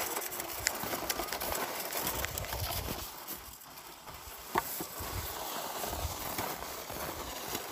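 Snow crunching underfoot while walking, a dense run of small crisp crackles, with low rumbles on the microphone and a single sharp click about four and a half seconds in.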